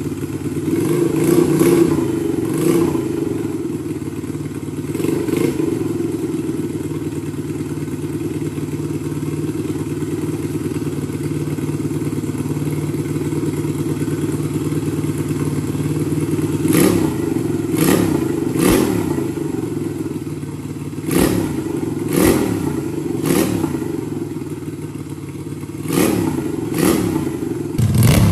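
Scooter-based 250cc L-twin engine running on a bench while its carburettors are adjusted. It idles steadily, and the throttle is blipped a few times in the first three seconds and several more times in the second half, the revs rising and dropping back briefly each time.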